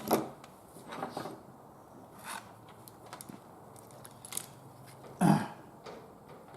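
Scattered light clicks and knocks of microwave parts being handled, with one short throat-clearing sound about five seconds in.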